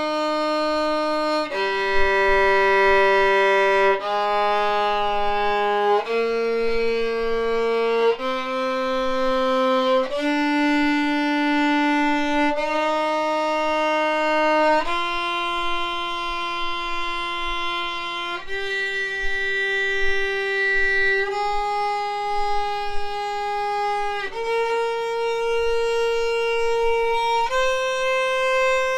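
Violin playing an E-flat major scale in first position, practised at a constant tempo: slow, evenly held bowed notes of about two to three seconds each, stepping upward in pitch.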